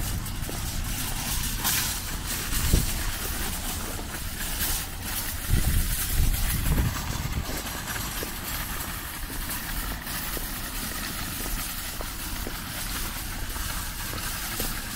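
Street noise with a van's engine running as it drives off, over a steady hiss and small irregular clatters.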